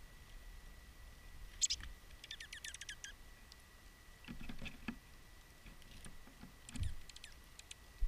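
Small birds pecking at scattered seed on a wooden table close to the microphone: bursts of quick, light clicks and taps, with a soft thump about seven seconds in.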